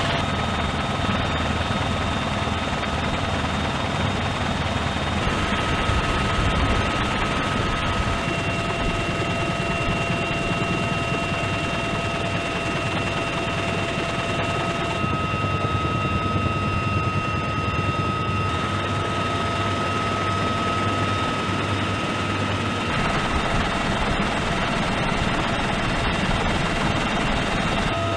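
Steady in-flight cabin noise of a UH-1Y Venom helicopter: a dense, loud rumble of rotors, engines and airflow with several steady whining tones held over it.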